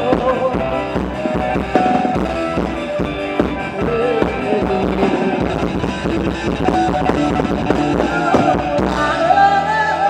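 Live band playing Thai ramwong dance music, with a melody line that is probably sung over a drum kit beat. About nine seconds in, the drums and bass stop and a held note rings on.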